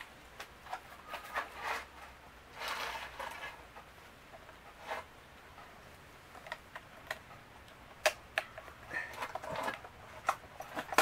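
Scattered light clicks and short scuffs of hands and a shoe handling a Stihl MS250 chainsaw as it is readied for starting, its engine not yet running.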